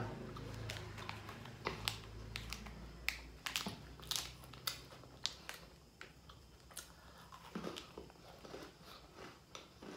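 Crisp sandwich cookie crunched and chewed close to the microphone: irregular sharp crunches, dense at first and thinning out in the second half.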